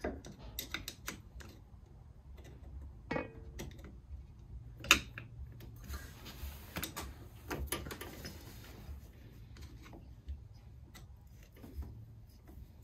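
Irregular light clicks and taps of hand tools on metal as the four-wheel-drive actuator's mounting screws are worked loose, with one sharper click about five seconds in and a short squeak near three seconds.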